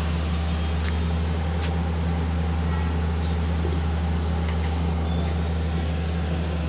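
A steady, loud, low engine hum that does not change in pitch or level, with a few faint clicks.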